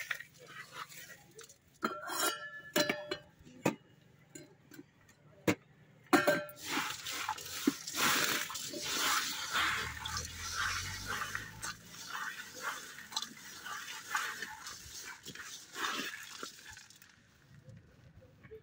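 Hands tossing and mixing dry puffed rice and crisp farsan in a large metal bowl: a dense crackling rustle with many small clicks of grains against the metal. There are brief squeaks about two seconds in and again around six seconds in.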